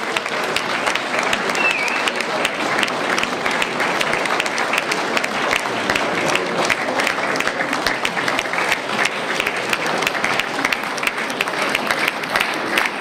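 Audience applauding steadily: many hands clapping in a dense, irregular patter.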